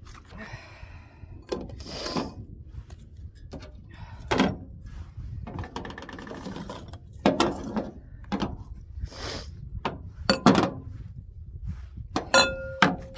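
Knocks and thuds of food and kitchen items being handled and set down on a work surface, with some rustling between them and a brief squeak near the end, over a steady low wind rumble.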